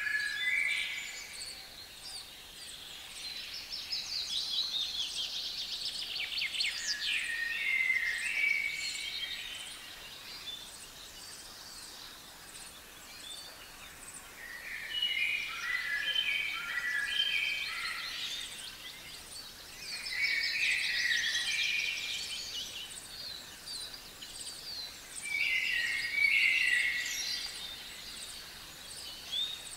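Songbirds singing: several song phrases a few seconds long, each with trilled and stepped notes, separated by short pauses. A faint, even, high ticking runs underneath.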